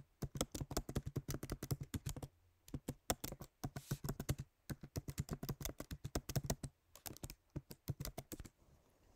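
Typing on a computer keyboard: quick runs of key clicks with a couple of short pauses, stopping shortly before the end.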